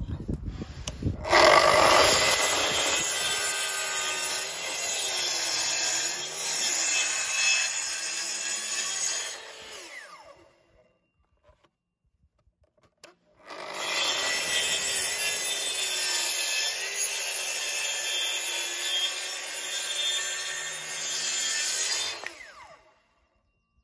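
Festool plunge-cut track saw cutting timber as it runs along its guide rail, in two passes of about eight to nine seconds each with a short silent pause between; the motor's pitch wavers slightly under load and winds down at the end of each pass.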